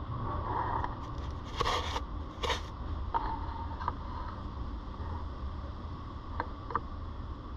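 Netherland Dwarf rabbit scraping and nibbling at a corrugated cardboard scratcher, muffled by the camera case. Two short scratchy bursts come about a second and a half and two and a half seconds in, then a few sharp clicks, over a steady low rumble.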